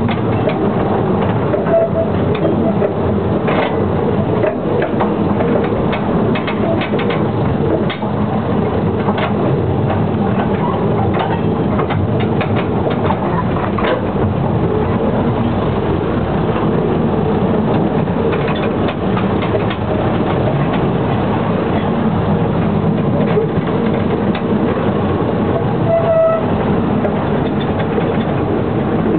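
Narrow-gauge light railway train running along the track, with a steady rumble and rapid irregular clicking from the wheels on the rails.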